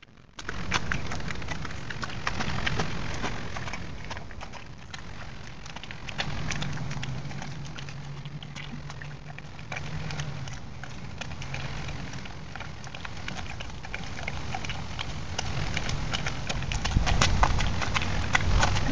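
Black bear chewing and crunching food close up, a dense run of wet smacks and jaw clicks that grows loudest near the end. A low drone sounds underneath for a few seconds in the middle.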